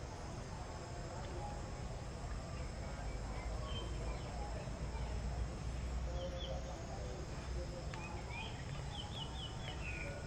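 Outdoor ambience: a steady low rumble with faint small birds chirping, then a quick run of short high chirps near the end.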